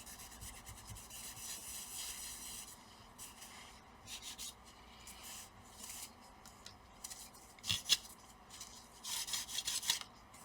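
Light rubbing and scraping with scattered small ticks as small laptop parts and screws are handled and fitted during reassembly.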